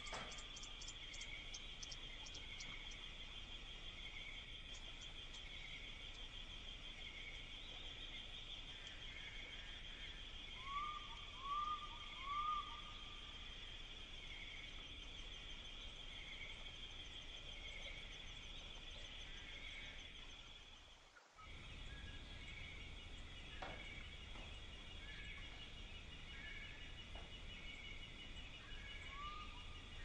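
Outdoor woodland ambience of birds and insects: a steady high chirring with a faint chirp repeating about once a second, and three short, louder calls in quick succession about eleven seconds in. The sound drops out briefly about twenty-one seconds in.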